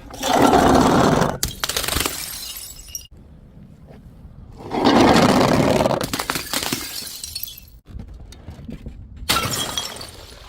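Glass bottles shattering: three loud crashes of breaking glass, one near the start, one about five seconds in and one near the end, each trailing off into crunching and tinkling.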